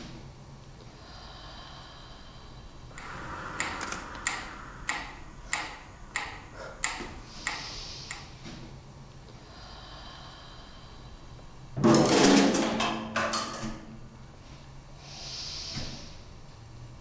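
A woman's unworded vocal sounds into a stage microphone: hissing breaths, a run of about nine sharp clicks roughly twice a second, then a louder, rough vocal burst about twelve seconds in.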